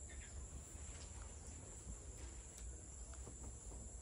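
Faint, steady high-pitched chirring of an evening insect chorus, crickets, with a few faint light rustles or clicks.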